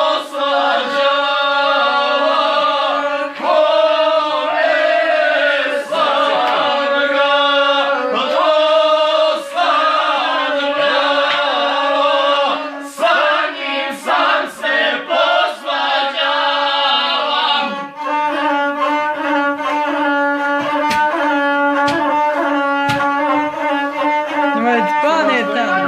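Gusle, the single-string bowed Balkan fiddle, played steadily while a man sings over it in the declaiming style of a gusle song.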